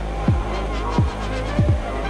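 Background electronic music with a deep, booming kick drum about every 0.7 seconds over a steady bass.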